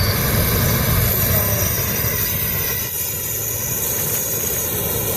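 Belch Fire gas torch burning with compressed air blown in, a steady, loud rushing flame noise. Its high hiss eases a little about three seconds in.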